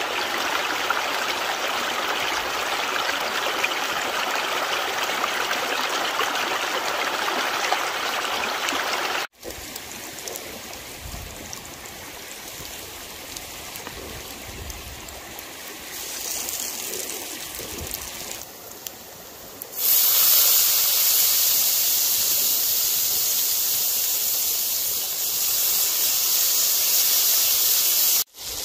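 Shallow stream rushing over rocks, cut off about nine seconds in for quieter running water. From about twenty seconds there is a loud, high sizzle of pasta and pancetta frying in a cast-iron skillet, which stops suddenly near the end.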